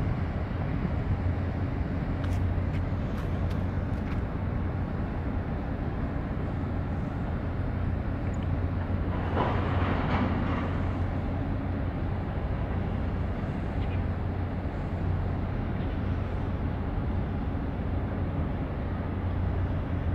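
Steady low drone of a large container ship under way close by, a constant low hum under a broad hiss, with a brief louder rush of noise about halfway through.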